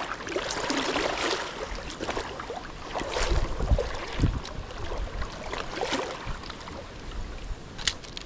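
Shallow stream water rippling and running, with low knocks from handling the camera and gear and a sharp click near the end.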